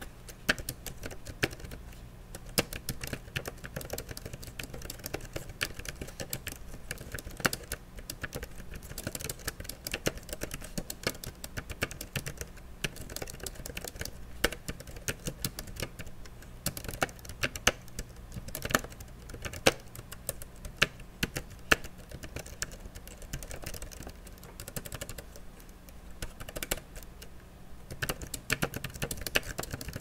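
Continuous typing on a Targus AKB32US keyboard: a quick, uneven run of key clicks, with now and then a louder keystroke.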